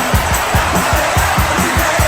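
Hockey goal song playing after the goal horn, with a fast, steady drum beat of about four beats a second. A dense wash of arena crowd noise sits underneath.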